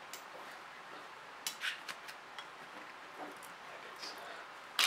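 Soft handling sounds as a hand moves a computer's copper-and-aluminium heat sink on a cloth sheet: two light clicks about a second and a half in, then a few fainter ones.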